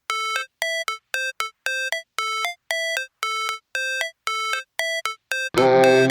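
Intro of an electronic hip-hop track: a bare synth melody of short, evenly spaced beeping notes with gaps between them, then the full beat with bass comes in near the end.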